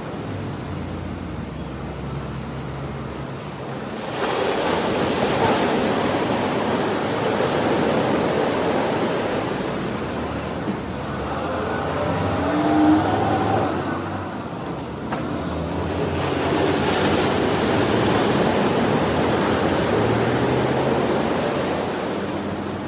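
Ocean surf breaking on a beach, a steady wash of noise that swells, eases off a little past halfway and swells again. A short pitched sound rises over it just past the middle.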